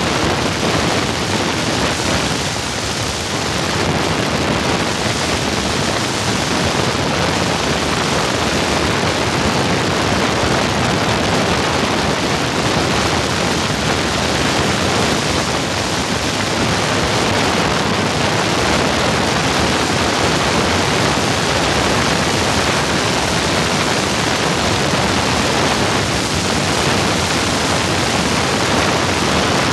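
Steady, loud rushing noise of wind and propeller blast over the microphone of an open-cockpit biplane during its takeoff roll and climb, with the engine under it.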